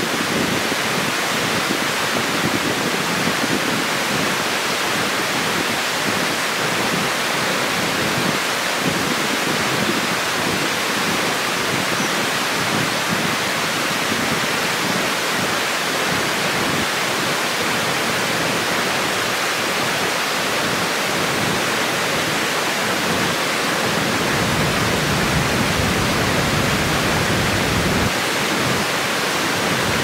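Steady rushing of water pouring over a low weir and tumbling down a rocky channel, with a deeper rumble joining for a few seconds near the end.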